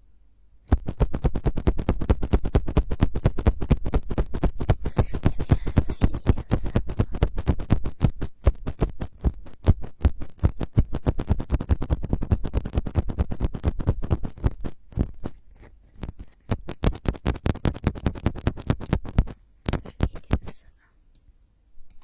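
ASMR trigger: rapid scratching strokes made right on the microphone, about eight a second, each with a heavy low thump. The strokes thin out in the second half and pause briefly before a last short run.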